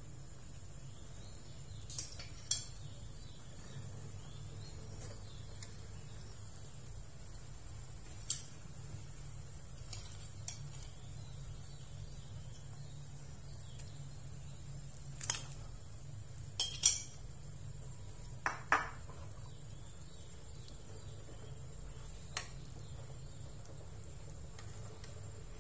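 A metal spoon and spatula clinking against an aluminium wok now and then, about a dozen short clinks, while minced meat is spooned into the broth. A steady low hum runs underneath.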